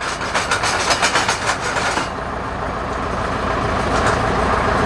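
Engine running steadily at low revs, with a quick run of sharp metallic clicks, several a second, for about the first two seconds.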